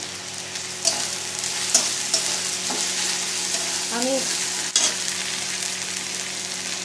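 Chopped onion and garlic sizzling in oil in an aluminium kadai, fried nearly golden. A spatula stirs them, scraping and knocking against the pan a few times.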